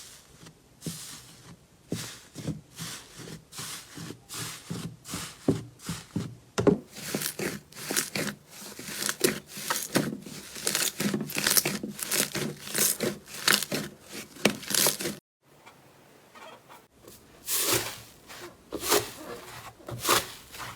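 Slime being squeezed and pulled by hand, giving a rapid run of crisp crackling and crunching pops. The crackling stops for a moment about fifteen seconds in, then starts again.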